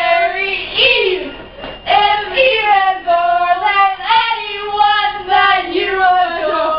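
A young woman's voice singing a pop melody loudly with long held notes that slide between pitches, as if into a pretend microphone.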